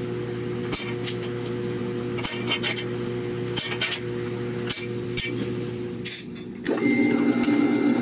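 Small steel plates clinking as they are set down and shuffled on a steel table, a few sharp clicks over a steady machine hum. About two-thirds of the way through, a drill press starts and bores into a steel plate held in a vise, louder than anything before it, with a high steady whine.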